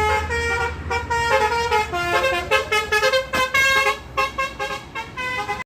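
Basuri multi-tone bus horn ("telolet") playing a tune: several horn tones sounding together and stepping from note to note, then cutting off suddenly near the end.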